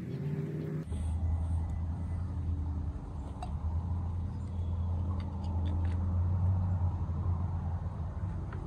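A steady low rumble like a road vehicle's engine running nearby, with a few faint clicks of small metal carburetor parts being handled.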